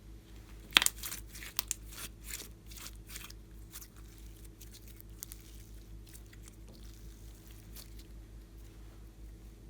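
Slime being squeezed and worked by hand, giving a string of sharp sticky clicks and crackles from about a second in that thin out to a few faint ticks by the middle.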